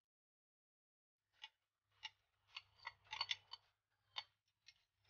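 Metal spoon scraping and tapping against the inside of a ceramic bowl, clearing out the last of the creamed corn. It comes as a faint, irregular string of about ten short clicks and scrapes, starting about a second and a half in and bunched in the middle.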